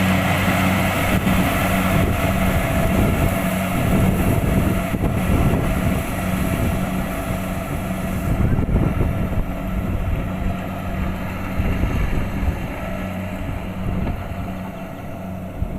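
Kubota DC-70 Plus combine harvester's diesel engine running steadily, with a constant low drone and a hiss over it that drops away about halfway through.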